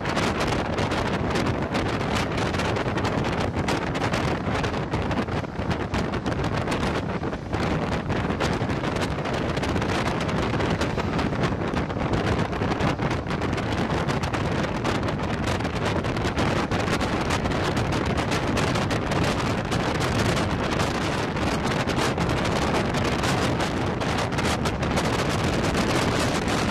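Steady rush of wind buffeting the microphone while filming from a moving passenger train, over the continuous running noise of the train at speed.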